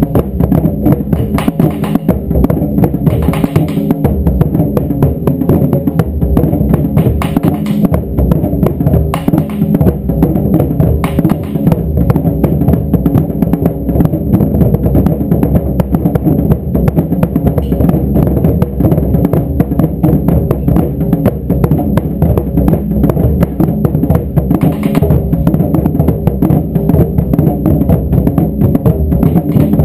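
A group of taiko drums pounded together in a steady, driving beat, dense strokes with no break.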